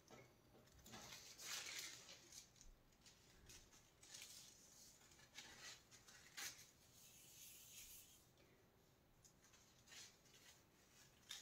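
Faint, scattered crinkling and rustling of thin metal leaf being pressed and rubbed onto a wall with fingers and its backing paper.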